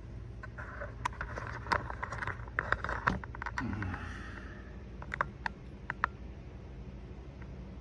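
A run of small sharp clicks and taps with light scraping, from hands handling small hard parts of a model aircraft's rudder linkage, over a steady low hum.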